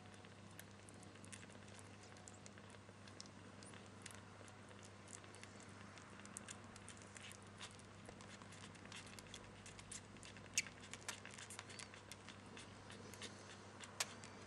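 Faint, irregular soft clicks and ticks of kittens suckling at their mother, growing busier in the second half, over a low steady hum.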